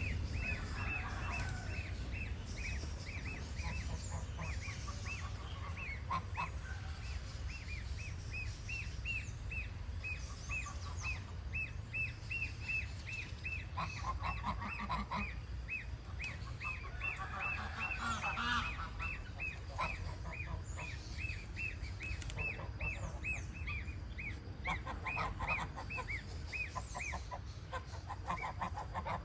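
Goslings peeping without a break, short high peeps at about two or three a second. Bursts of quicker, lower chattering calls come in several times, about halfway through and again near the end, over a steady low rumble.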